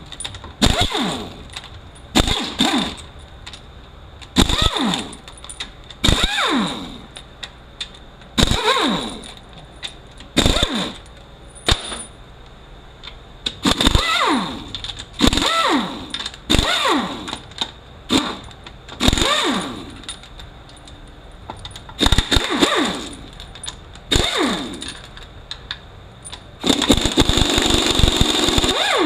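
Power ratchet run in short bursts, each spinning out a 12 mm bolt from the U760E transaxle case, its pitch falling as each burst winds down; a longer, rougher run near the end.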